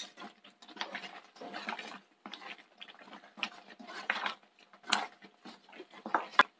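Slotted wooden spatula stirring thick curry gravy in a nonstick pan: irregular wet scraping and squelching strokes, with a sharper knock about five seconds in.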